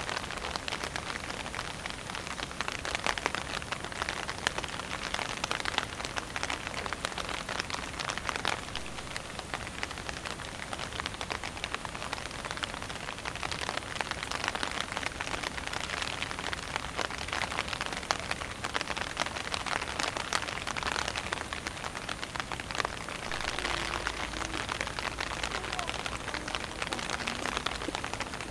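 Steady rain pattering, a dense even patter of drops.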